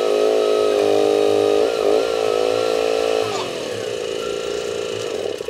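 Komatsu PC01-1A micro excavator running under hydraulic load as its boom and arm are worked, the engine note dipping briefly a couple of times. A little past halfway the pitch drops and settles lower and quieter.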